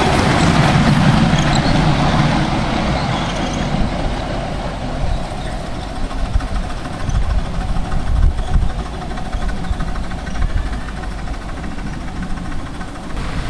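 A 7¼-inch gauge miniature steam locomotive hauling riding cars past, with a steady hiss and a rumble of wheels on the track. The sound is loudest in the first couple of seconds, as the engine passes close by.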